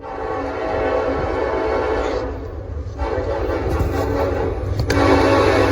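Air horn of Norfolk Southern AC44C6M locomotive 4169 sounding two long blasts with a short break about two seconds in, over a low rumble. The horn has an unusual tone for Norfolk Southern, like the horns on BNSF and Union Pacific locomotives.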